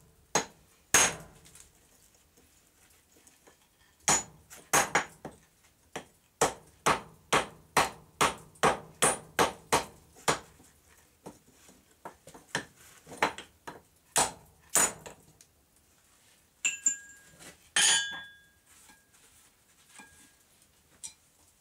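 Hand hammer striking a punch held on a red-hot railroad spike on an anvil, punching a hole through the hot steel. After a short pause the blows come in a steady run of sharp metal strikes, about two to three a second. Near the end there are a couple of ringing metallic clanks.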